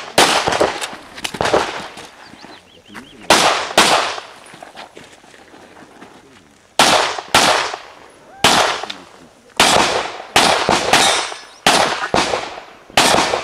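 Semi-automatic pistol fired in rapid pairs: about a dozen loud shots, mostly two at a time roughly half a second apart, each with a short echoing tail, with a pause of a few seconds just before the middle.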